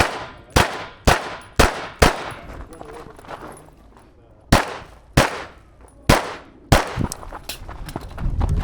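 Live-ammunition pistol firing a string of shots: five about half a second apart, a pause of about two and a half seconds, then four more at a similar pace, each shot with a ringing echo.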